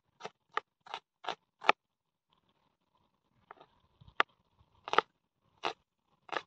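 Kitchen knife slicing a red onion on a plastic cutting board, each stroke a sharp tap of the blade on the board: six quick cuts in the first two seconds, a pause, then slower cuts about one every two-thirds of a second.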